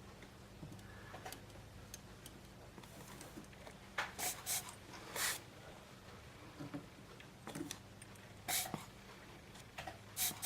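Desoldering on a circuit board: a few short hissing bursts, about half a dozen, mostly clustered around four to five seconds in and again near the end, over a steady low electrical hum.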